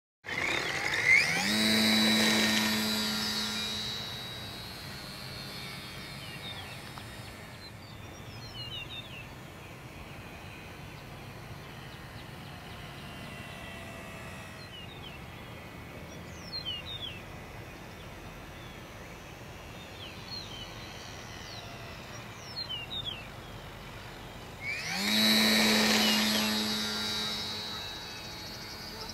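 RC Super Cub model airplane's motor and propeller buzzing as it makes two close passes, one about a second in and another near the end, each swelling and then fading over a few seconds. Faint birds chirp in between.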